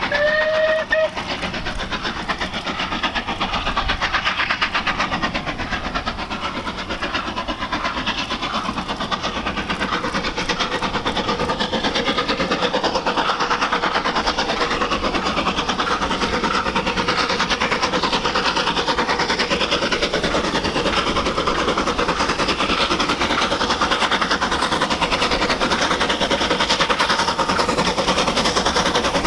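Three-cylinder Bulleid Battle of Britain Pacific steam locomotive 34081 on a freight train gives a short whistle of two notes in the first second. It then works on with a fast, steady exhaust beat, which grows louder from about eight seconds in.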